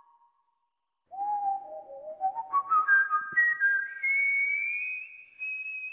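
A whistled melody: after about a second of silence it starts low, climbs note by note in steps, and ends on a long held high note.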